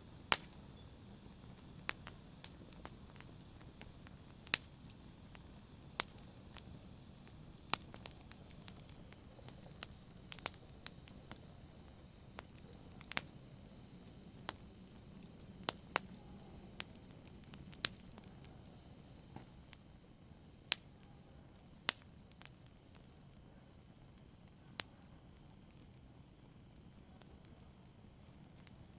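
Wood fire burning in a fireplace: sharp, irregular crackles and pops, a few a second, over a soft steady hiss of the flames. The pops thin out near the end.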